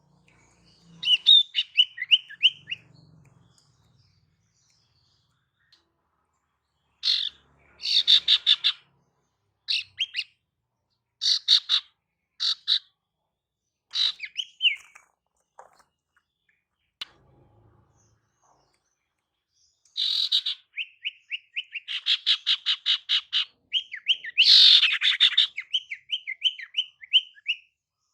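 Female iora (sirtu, also called cipoh) calling in bursts of rapid chattering notes and quick trills, with pauses between bursts. The calls grow denser and longer in the last third. This is the female's call used as a lure to draw in males.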